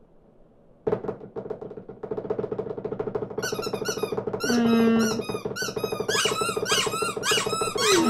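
A flock of small cartoon birds chirping and squeaking together: many short, high peeps that rise and fall, piling up and overlapping from about three and a half seconds in. Under them a steady low hum starts suddenly about a second in.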